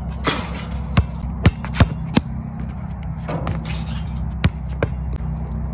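A basketball bouncing on a concrete outdoor court: a run of sharp bounces, several in quick succession in the first couple of seconds and two more later on. A steady low hum runs underneath.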